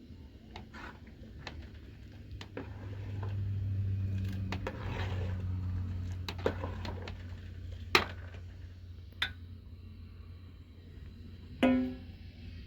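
Background music, with a few sharp knocks about eight, nine and twelve seconds in; the last knock is the loudest and rings briefly.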